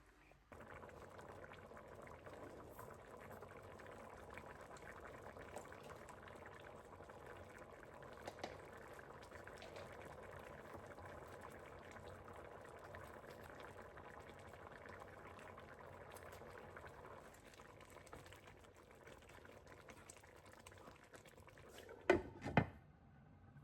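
Liquid boiling steadily in a cooking pot, the bubbling easing off in the last part. Two sharp knocks near the end.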